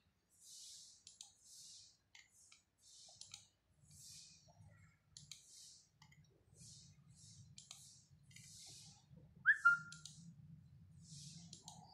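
A fingertip rubbing across a laptop touchpad in short, repeated swipes while scrolling, with small clicks among them. A low hum comes in about four seconds in, and a short, sharp falling chirp, the loudest sound, comes about nine and a half seconds in.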